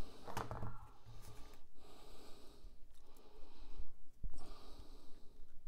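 A man breathing heavily through his nose close to the microphone, a few long breaths, with a few small clicks of plastic model track and wire being handled.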